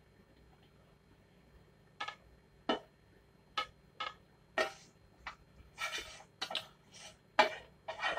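A spatula scraping and knocking against a frying pan as thick jam is scraped out into a bowl: short clicks and scrapes that start after about two seconds and come faster and louder toward the end.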